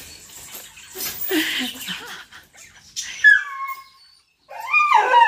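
Dog whining: a rustle of movement, then a high cry that falls in pitch about three seconds in, and a wavering whine starting near the end. Excited whining of a dog greeting a returning family member.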